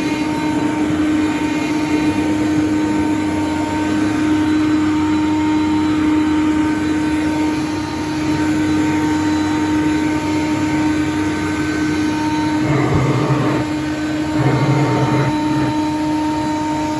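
Hoover Conquest upright vacuum cleaner running on commercial carpet: a steady motor whine over a rush of air. About three-quarters of the way through, the sound twice briefly grows louder and rougher.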